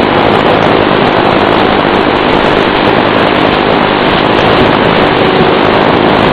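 Small electric RC plane's motor and propeller running steadily in flight, a faint hum under a loud, even rushing noise.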